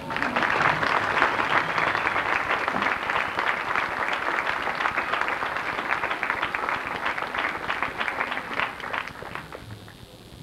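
Audience applauding: a dense patter of many hands clapping that starts suddenly and thins out and dies away near the end.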